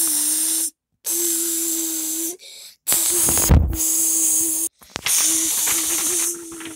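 Electric zap sound: a steady buzz with loud crackling hiss, in four bursts of about a second and a half, each cutting off abruptly. A low thump comes about halfway through.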